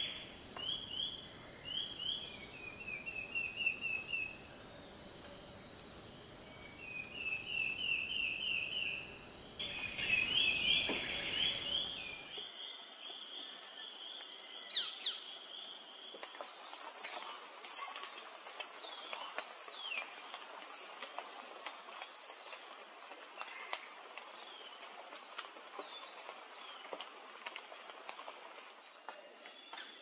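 Tropical forest ambience: insects keep up a steady high ringing while birds call. At first the birds give short runs of repeated notes; after about twelve seconds comes a louder spell of sharp chirps and whistles.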